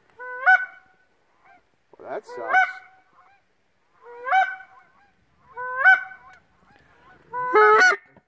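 Goose honks, one at a time, five in all about every one and a half to two seconds, each a loud two-part 'her-onk' that steps up in pitch.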